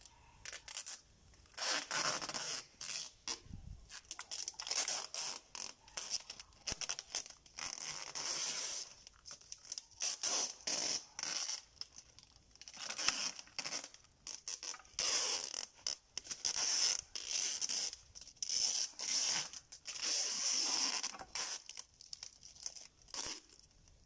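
Clear packing tape being pulled off its roll in repeated stretches of a second or two, each a high, rasping screech, as it is wound around a plastic fiber-optic splice closure.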